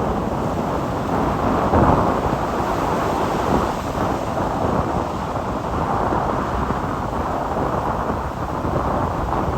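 Gale-force wind buffeting the microphone: a loud, steady, dense low rumble, with the sea's waves mixed in beneath it.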